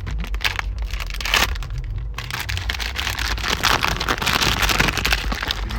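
Plastic packaging of a surprise toy being torn open and crinkled: a dense, continuous crackling rustle.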